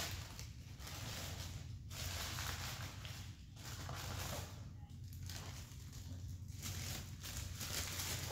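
Paper food wrapper and cardboard takeout box rustling and crinkling in several stretches of a second or so, with brief pauses between, over a low steady hum.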